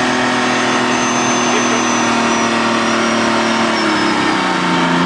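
LAV-25 armoured vehicle's diesel engine running at steady revs, its pitch dropping as the revs ease off about four seconds in.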